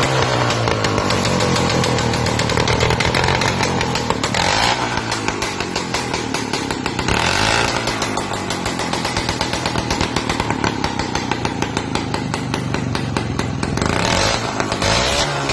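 Lambretta scooter's two-stroke single-cylinder engine running with no silencer fitted: a loud, raw open-exhaust sound, revved up and let back down several times.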